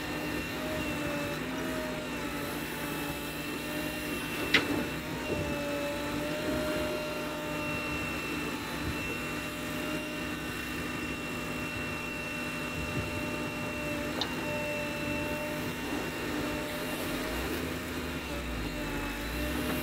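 JCB backhoe loader's diesel engine running steadily as the backhoe arm digs wet clay, with a steady high whine over the engine note. A single sharp knock about four and a half seconds in, and a lighter one near fourteen seconds.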